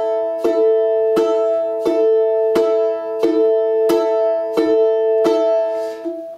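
Balalaika strummed in alternating downward and upward strokes of the index finger, about three strokes every two seconds. The same ringing chord sounds throughout and stops just before the end. This is the basic strumming technique (бряцание) with both strokes combined.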